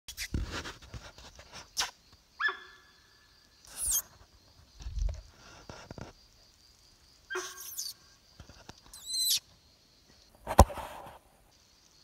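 Young sambar deer giving a short honking call twice, several seconds apart. Between the calls come knocks and rustles, the loudest a sharp knock near the end.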